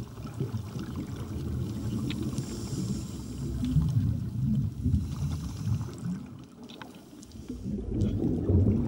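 Muffled underwater rumble, low and uneven, with a few faint clicks.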